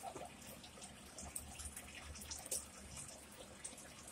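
Close-miked chewing of a mouthful of leafy salad: a run of short, wet crunches and mouth clicks.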